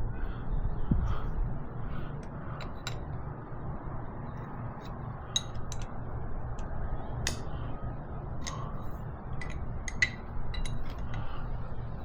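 A wrench clicking and tapping as it tightens the injector line nuts on a diesel engine's fuel injectors: scattered sharp metallic clicks, over a steady low hum.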